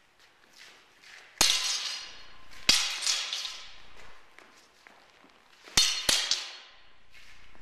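Arming swords clashing during sparring: two single ringing clashes about a second and a half and two and a half seconds in, then a quick run of three near the end, each ringing and echoing in a large gymnasium.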